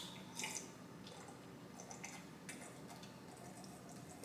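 Faint sipping and swallowing from a glass of fruit-punch soda. There is a sharp click of the glass right at the start, then a short wet slurp and a few soft mouth clicks.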